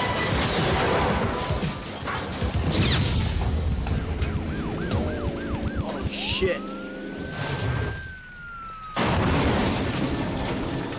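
Film car-chase sound: a car crashing through scaffolding with clattering debris, then a police siren warbling quickly a few times and rising into a long held wail that eases down, and a loud rush of noise near the end as a car slides in a cloud of dust.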